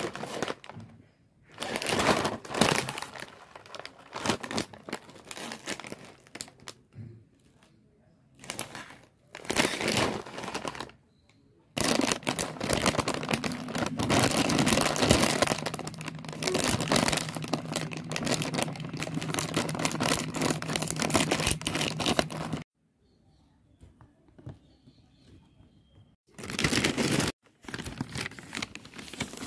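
Plastic snack bag of Bikaji Soya Sticks crinkling as it is handled, in separate bursts of rustling with a long unbroken stretch of crinkling through the middle.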